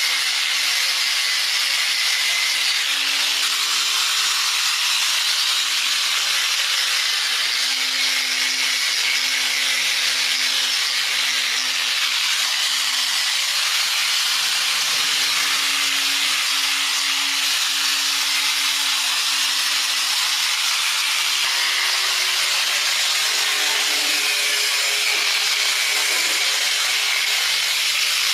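Steady hiss of a workshop tool at work, with a faint hum underneath that shifts in pitch now and then.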